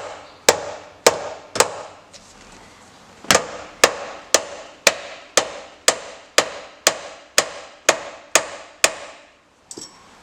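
Hammer blows striking a bent piece of metal on a Honda Civic's steering column to knock it back flush, about two sharp strikes a second with a short ring after each. There is a pause of about a second and a half about two seconds in, and the blows stop shortly before the end.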